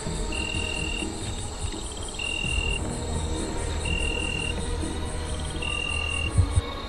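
Forest insects chirping in a fast, high pulsing trill, over a clean high note that repeats about every second and a half to two seconds, with a low rumble beneath. The trill stops near the end, just after two short low thumps.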